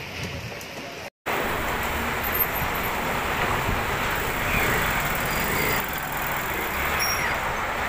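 Heavy rain and strong wind of a convective storm, a dense steady wash of noise. The sound drops out briefly about a second in, then comes back at full strength.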